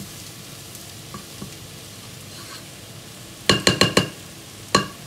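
Shelled broad beans and chopped dill sizzling as they fry in oil in a pot, with a quick run of four or five ringing knocks of the stirring spoon against the pot about three and a half seconds in and one more near the end.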